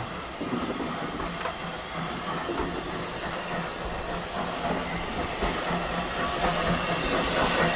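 A slow steam-hauled train moving along the platform: a passenger coach's wheels running on the rails, with steam hissing from the Peckett 0-4-0 tank locomotive at its head. It grows louder toward the end.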